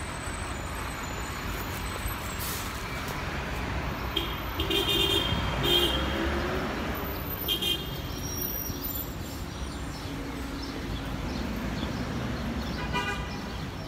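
City street traffic noise, with a bus passing close by about five to six seconds in and a few short horn toots around then and again a couple of seconds later.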